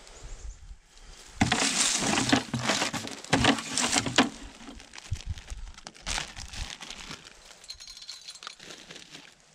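A plastic bag of dry dog-food bait crinkling and rustling as it is handled. It is loudest for about three seconds starting a second and a half in, with a shorter burst of crinkling around six seconds in and faint rustling after.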